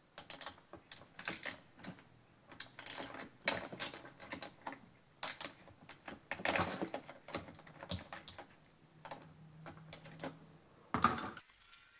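Irregular small clicks and scrapes of a hand tool and plastic and metal parts being worked loose around the carburetor of a Stihl 026 chainsaw, with one sharper click about eleven seconds in.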